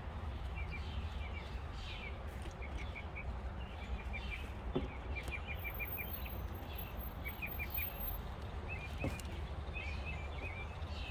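Small birds chirping in quick runs of short high notes over a steady low background rumble, with two faint clicks partway through.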